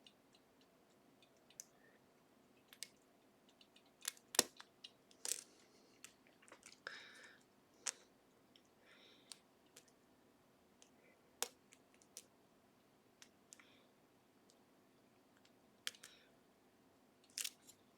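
Scattered small metallic clicks and brief scrapes of a lock pick and tension wrench working the gin spool pins inside an Assa Ruko 500 pin-tumbler lock, with the sharpest click about four seconds in.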